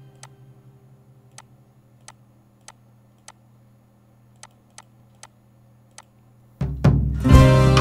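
Computer mouse clicking: about nine single clicks, spaced irregularly, as a faint tail of music fades out. Near the end, loud background music starts abruptly.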